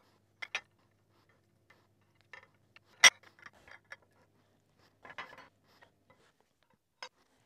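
Small steel V-blocks and a paintbrush tapping against a ceramic plate and a glass as they are handled: scattered light clicks and clinks, the sharpest one about three seconds in.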